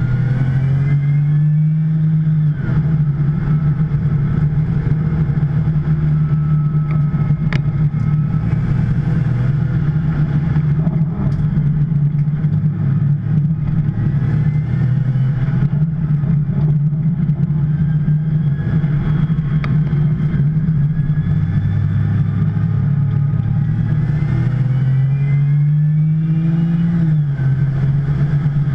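Twin-turbo flat-six of a 2010 Porsche 911 Turbo running hard at racing pace. The engine note holds steady for long stretches and twice climbs, then drops back sharply, as on upshifts.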